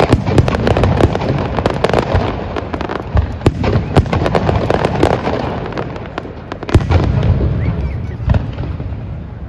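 Fireworks display going off: rapid bangs and crackling in quick succession, with the loudest boom about seven seconds in. The bangs thin out near the end.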